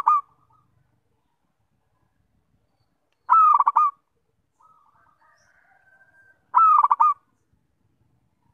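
Zebra dove (perkutut) cooing: two short, rapid stuttering coo phrases about three seconds apart, with the tail of another right at the start. A faint, softer call lies between them.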